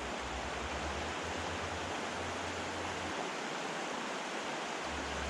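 Steady rush of a mountain river's rapids, an even hiss of flowing water, with a low rumble underneath that drops out for a couple of seconds midway.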